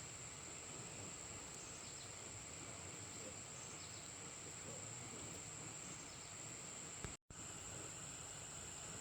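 Steady high-pitched insect chorus over outdoor background noise, cut off for an instant about seven seconds in.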